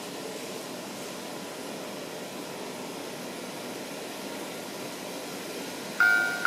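Steady whirring rush of an N-gauge model train running on the layout's track. Near the end the model automatic level crossing's warning bell starts to ding, a clear repeated tone about twice a second, which signals an approaching train.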